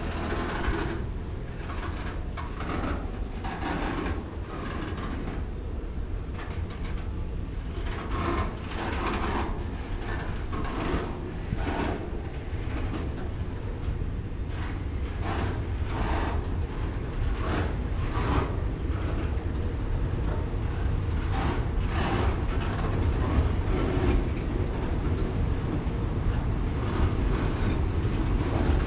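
Freight train rolling through: a steady low rumble with repeated clacks of the wheels over the rail joints.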